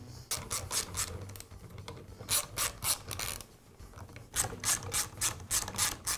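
Socket ratchet clicking as it is swung back and forth to back out the cap bolts on a nail gun, in three runs of quick clicks, about four or five a second, with short pauses between them.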